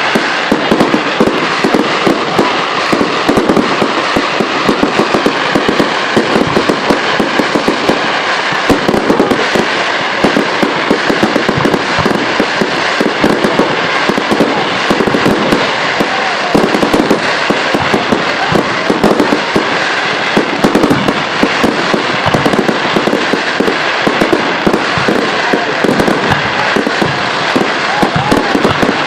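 Fireworks display: a dense, continuous run of firework bangs and crackles.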